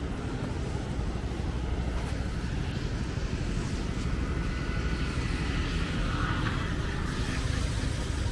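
Steady wind rumble buffeting the microphone, with the wash of breaking surf behind it.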